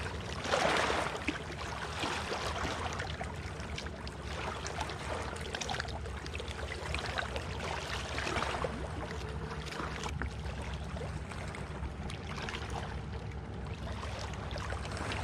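Lake water lapping and trickling at the shore, dotted with small ticks and splashes, with a louder burst of water sound about half a second in over a faint low hum.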